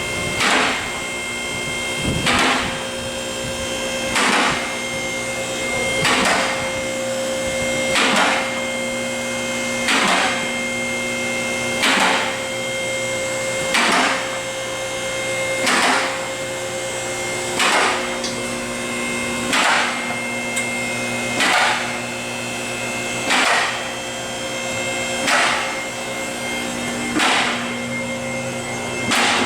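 Vehicle lift raising a car: the lift's electric motor hums steadily while a loud clack sounds about every two seconds. The hum stops shortly before the end.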